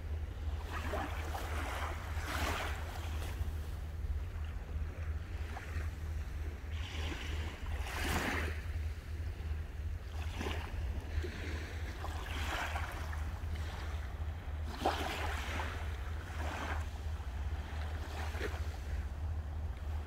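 Sea waves washing onto the shore one after another, a noisy wash every couple of seconds, the strongest about eight seconds in, over a steady low rumble.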